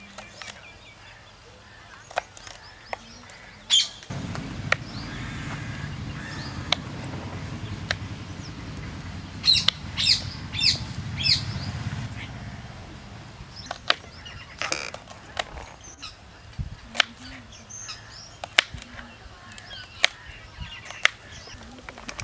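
Knife chopping green beans on a plastic cutting board: irregular sharp taps. Birds chirp in the background, and a low rumble rises about four seconds in and fades out around twelve seconds.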